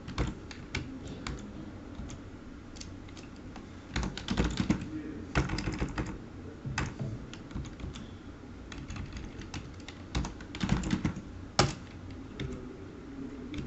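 Typing on a computer keyboard: irregular keystrokes, with quicker runs of keys about four seconds in and again near eleven seconds.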